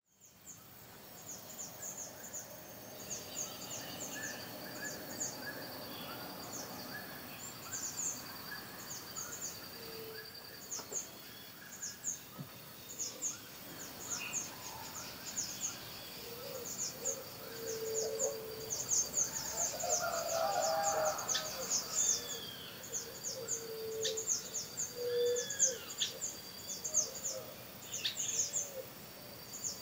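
Several wild birds calling among trees: a constant stream of quick, high chirps over a steady thin high tone. Short low hoots and down-slurred whistles join in over the second half.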